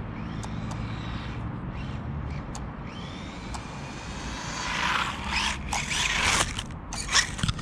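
Small RC buggy's 380 electric motor whining up in pitch as it accelerates flat out on a speed run, then a louder rush of motor and tyre noise as the car passes close by, about five seconds in.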